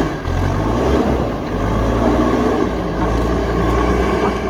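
Diesel engine of a heavy earthmoving machine running steadily: a loud, low drone.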